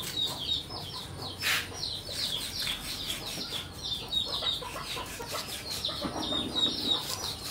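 Chickens calling: a steady run of high, falling peeps, several a second, with lower clucks in the second half. A cleaver working a fish fillet on a wooden chopping block adds a few short scrapes.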